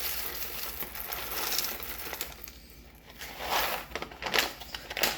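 A bag of whole coffee beans being handled: irregular crinkling and rustling of the bag, with the beans shifting inside, louder about three and a half seconds in.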